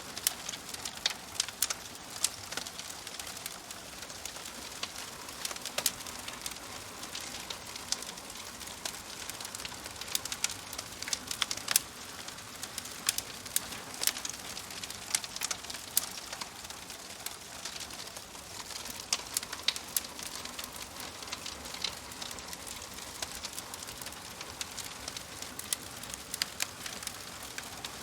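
Wood fire crackling: a steady hiss with irregular sharp pops and snaps scattered throughout.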